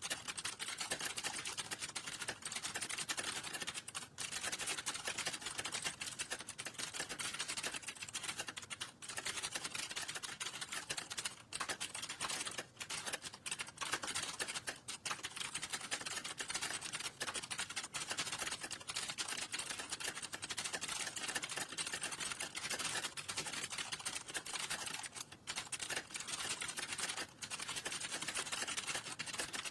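Fast, continuous typing on a computer keyboard, a dense run of key clicks broken by a few brief pauses.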